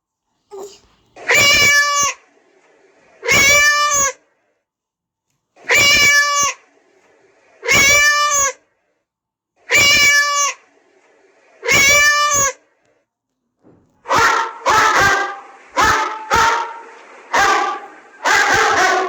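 Animal-sound ringtones played from a phone app. One recorded animal cry, a wavering call under a second long, repeats six times at even two-second intervals. About fourteen seconds in, a different clip starts: a quicker run of shorter animal calls.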